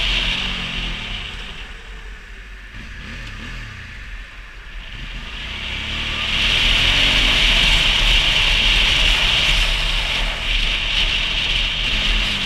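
Motorcycle engine and rushing wind while riding. The engine note falls and the sound eases off for a few seconds. Then the bike accelerates again, the engine pitch climbs and the wind noise grows loud.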